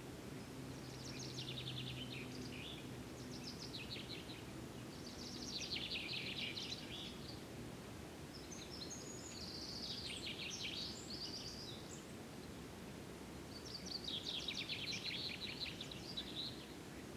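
A songbird singing about five quick trilled phrases a few seconds apart, over a steady low background rumble.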